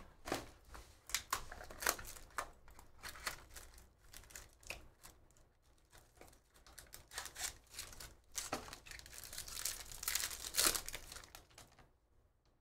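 Clear plastic wrapper of a trading card pack being crinkled and torn open by hand: irregular crackling strokes, busiest a little past the middle and stopping shortly before the end.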